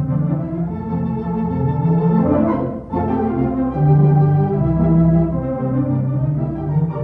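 Organ music playing held chords that change every second or so, with a brief dip about three seconds in.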